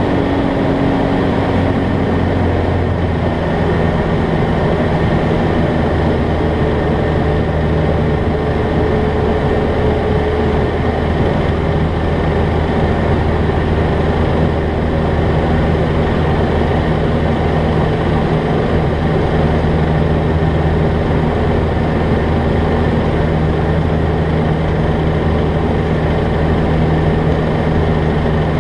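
A Jabiru light aircraft's piston engine and propeller droning steadily in flight, heard from inside the cockpit.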